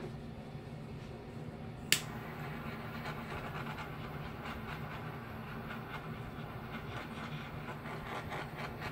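Steady low hum with one sharp click about two seconds in, followed by faint rustling and light ticking as a gloved hand works over a wet, freshly poured painting, popping air bubbles in the paint.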